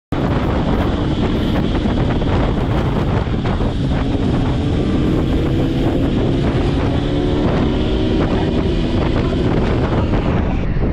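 Sport motorcycle engine running at road speed under heavy wind noise on the bike-mounted microphone, its note rising gently as the bike speeds up.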